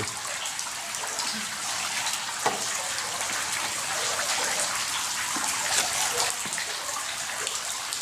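Water dripping and showering down from a rock overhang onto the river surface: a steady hiss of many drops landing, with a few single louder drips.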